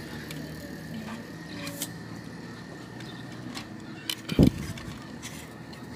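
Small clicks and rustling of wires and crimped connectors being handled and pushed together in a motorcycle headlight housing, with a dull thump about four and a half seconds in, over a steady background hum.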